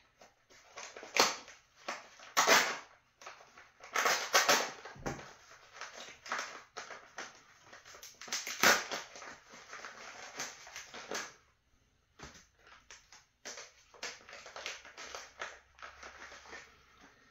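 Tissue-paper wrapping crinkling and rustling in irregular bursts as a small item is unwrapped by hand, with a short lull about twelve seconds in.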